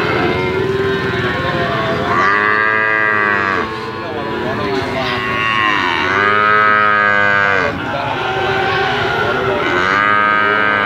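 Calves mooing: three long, drawn-out calls about two, six and ten seconds in, each arching up and then down in pitch, over a steady background din.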